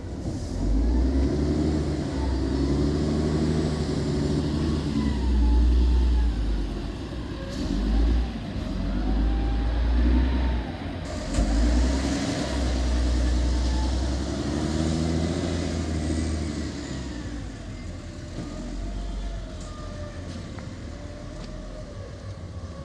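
Motor vehicle engine running under a heavy low rumble, its pitch rising and falling several times as it revs up and eases off, then settling lower and quieter in the last few seconds.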